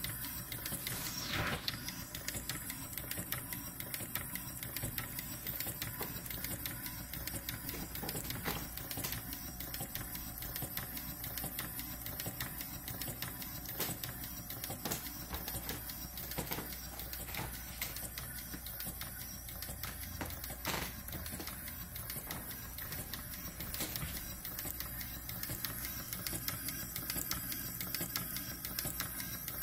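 Half-scale duplex Coles Corliss steam engine running, its valve gear and linkages clicking and clattering in a steady, even rhythm.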